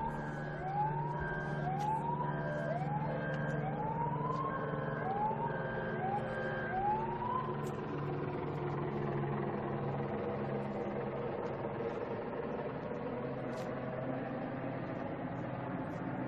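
Emergency-vehicle siren sounding in a series of rising sweeps, about one a second, which die away about halfway through; after that there is a steady background rumble of traffic.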